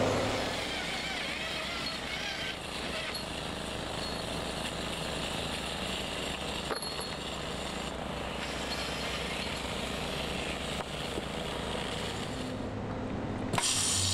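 Steady machinery drone on a construction site with a few faint metallic clicks. Near the end a stud-welding gun fires one short, loud, crackling arc as a steel stud is welded down.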